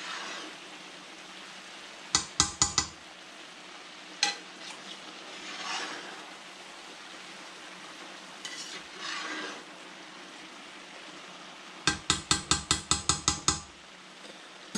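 Food sizzling in a large frying pan while a metal spatula stirs and scrapes through it. Two runs of sharp metal taps of the spatula on the pan: four quick ones about two seconds in, and about ten near the end.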